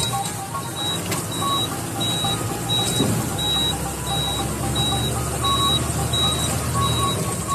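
Truck engine running while driving, heard from the cab as a steady low drone. Over it a high electronic beep repeats evenly, about one and a half times a second.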